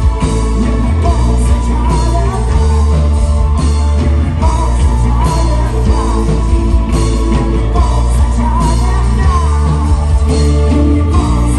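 Live rock band playing loudly: a man sings with full voice over electric guitars and a steady heavy bass and beat, with a string section of violins on stage.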